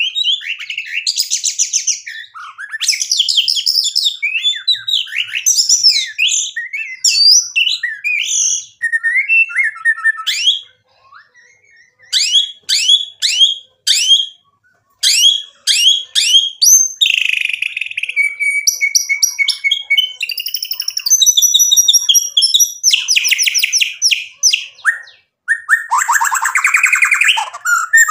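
White-rumped shama (murai batu) singing a long, varied song of whistled glides, rapid trills and runs of repeated notes. It breaks off briefly a little past ten seconds in and again near twenty-five seconds.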